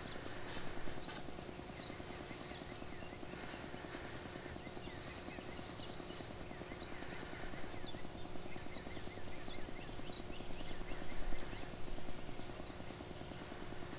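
Quiet woodland ambience through a rifle scope's built-in microphone: a steady low hum, with light rustling and short high chirps here and there, a little louder near the end.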